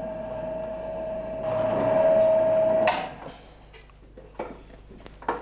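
Electric dough mixer running with a steady hum as it beats almond-and-sugar marzipan paste in its metal bowl. The hum gets louder, then cuts off suddenly about three seconds in as the machine is switched off. A few short knocks follow as a utensil works in the bowl.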